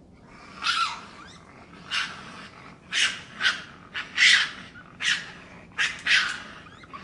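Spotted deer (chital) giving short, harsh, high-pitched calls, about eight in seven seconds, some in quick pairs.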